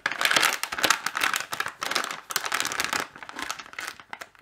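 Plastic anti-static bag holding a circuit board crinkling as it is lifted out of its box and handled, in a dense irregular crackle that grows fainter near the end.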